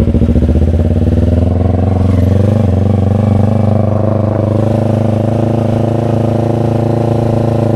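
Yamaha R25's parallel-twin engine running through an aftermarket SC Project exhaust, holding a steady engine speed with a loud, even exhaust note.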